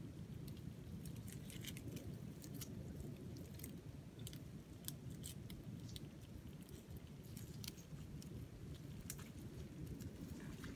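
Scattered small clicks and crackles over a low steady rumble, as a mud crab is bound with twine: the twine and the crab's shell being handled and pulled tight.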